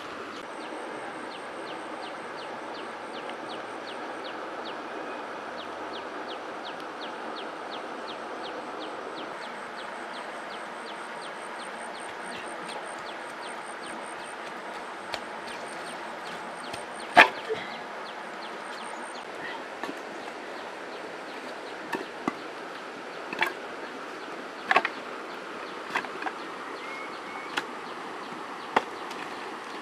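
Steady outdoor riverside background hiss with an insect ticking about two to three times a second through the first half. In the second half come about ten sharp knocks and clicks of stones and gear being moved on the gravel bank, the loudest a little past halfway.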